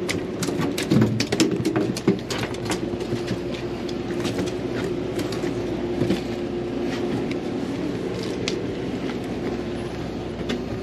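Steady drone of a sportfishing boat's machinery, with a cluster of clicks and knocks in the first few seconds and a few more scattered after.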